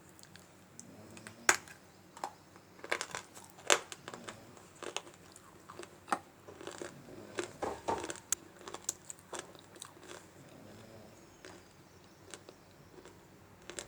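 A person biting and chewing dry multani mitti (Fuller's earth clay) with sharp, crisp crunches. The crunches come thick for the first several seconds and give way to softer, sparser chewing after about ten seconds.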